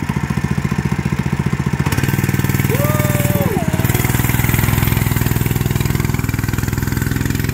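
Mini bike's small engine running with a fast, even putter, then revving up about two seconds in as the bike pulls away under load.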